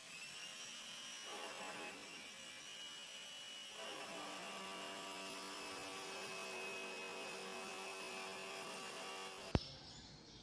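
A steady electrical hum with a thin high whine above it, which cuts off with a sharp click about nine and a half seconds in.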